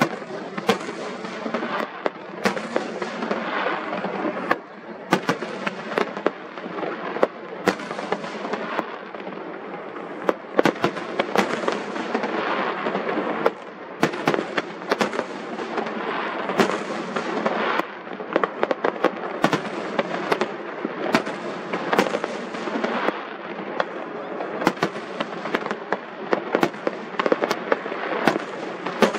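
Aerial fireworks display: a steady crackle of burning stars, with sharp bangs of bursting shells coming in quick, irregular succession.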